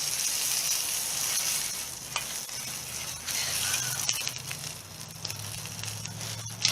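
Food sizzling and frying in a mess-kit pan over a campfire, a steady hiss that thins out after the first couple of seconds, with scattered small crackles and a sharp click near the end. A low steady hum comes in about halfway.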